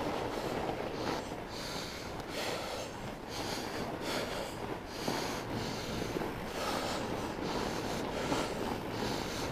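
Fat bike rolling over packed snow on 45NRTH Dillinger fat tyres, a steady low rumble of tyre and wind noise. Over it the rider's breaths hiss in and out in short bursts, a little more than once a second.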